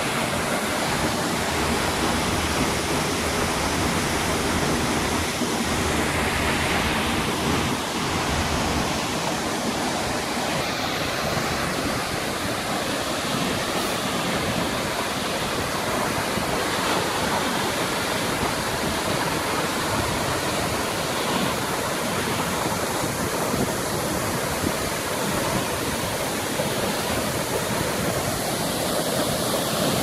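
Waterfall plunging into its pool: a steady rush of falling water.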